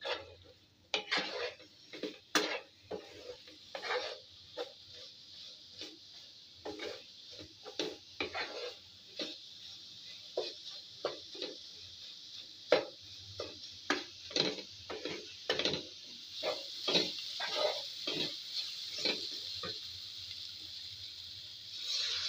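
Wooden spatula scraping and knocking against a frying pan as chicken pieces are stir-fried, over a steady sizzle. Near the end, water poured into the hot pan sets off a louder hiss.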